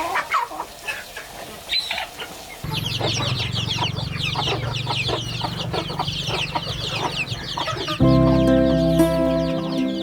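Chickens clucking and calling. From about two and a half seconds in, a dense chorus of short high calls runs over a steady low hum. Background music comes in about eight seconds in.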